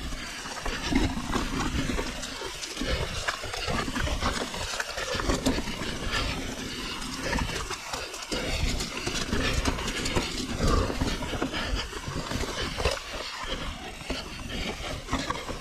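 Mountain bike descending a steep, rocky trail: the tyres crunch and rumble over loose stones and rock slabs, and the bike rattles with frequent sharp knocks. Irregular low buffeting, typical of wind on the microphone, runs underneath.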